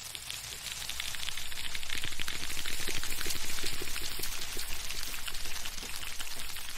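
Dense wet crackling and popping, like rain pattering or food frying, swelling over the first few seconds and then easing off, over a faint low hum: the noise track put to the crawling snail as its sound.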